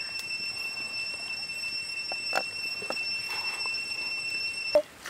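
A steady high-pitched whine with overtones under a few faint taps of cut fruit pieces being moved about on a stone slab; near the end the whine cuts off suddenly with one sharp knock.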